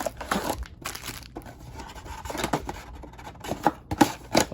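Plastic wrapping on a trading card box being crinkled and torn, with light clicks and knocks from handling the box.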